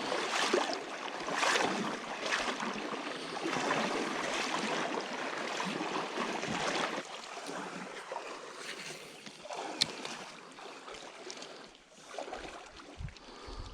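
Someone wading through a creek in waders, water sloshing and splashing in surges with the strides, over the running creek; the splashing fades after about seven seconds.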